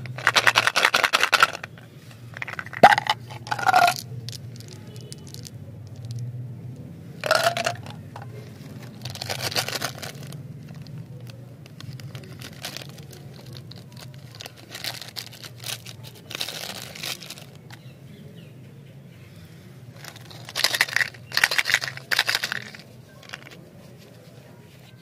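Plastic candy wrappers and small plastic candy containers handled and opened by hand: separate bursts of crinkling, tearing and scraping a few seconds apart, over a faint steady low hum.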